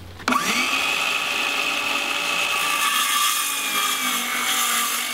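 Cordless circular saw starting up with a quick rising whine, then running steadily as it cuts through a wooden board.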